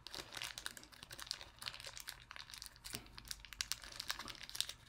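Small toy package being opened by hand: its wrapping crinkles and tears in quick, irregular crackles.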